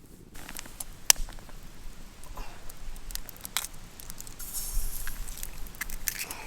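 Handling noise of camp gear: rustling and crackling with a few sharp clicks and knocks spread through, and a brief hiss just before the five-second mark.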